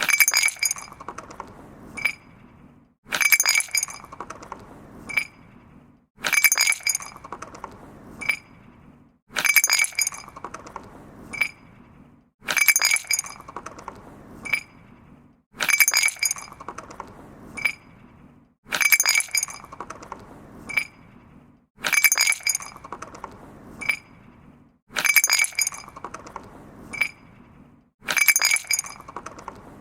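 Glass moving against stone: a burst of bright clinks and rattling that fades out, then a single sharp clink about two seconds later. The same pattern repeats about every three seconds.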